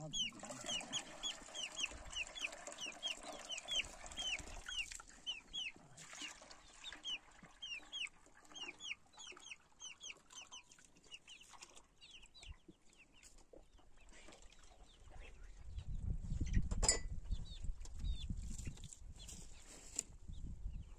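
Chicks peeping in a rapid run of short, high, falling chirps that thin out and fade after the first half. Near the end a low rumble comes in with one sharp knock.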